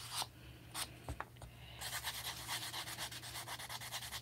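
A metal nail file rasping back and forth in quick, even strokes across the cut face of a polystyrene (styrofoam) ball, levelling the lopsided cut. The strokes stop briefly about a quarter second in, with a few light clicks, and resume just before two seconds.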